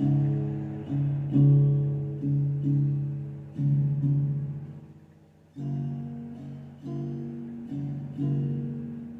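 Intro music of plucked guitar chords, each struck and left to ring out and fade, with a short pause about five seconds in.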